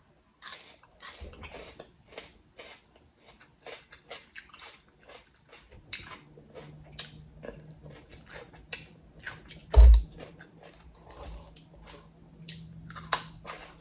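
Close-up crunchy chewing of raw red bell pepper: many short, crisp crunches at an irregular pace. A single heavy thump about ten seconds in.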